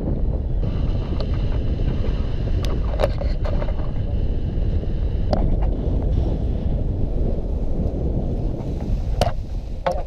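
Wind buffeting the microphone of a pole-mounted camera on a tandem paraglider coming in to land: a heavy, steady low rumble. A few sharp knocks and clicks break through it.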